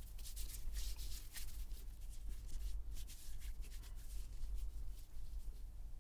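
Quick, irregular rubbing strokes in a run of short hissing sweeps, over a steady low electrical hum.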